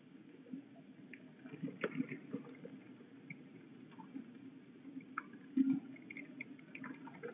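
Rain dripping and tapping on a ledge and camera housing: scattered irregular drips and taps over a low steady background, with a louder cluster about two seconds in and another just before six seconds.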